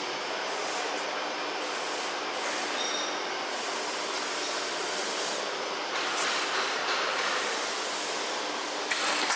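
Automatic bagging machine for washing powder running: steady mechanical noise with a hiss that comes and goes about once a second, growing louder about six seconds in.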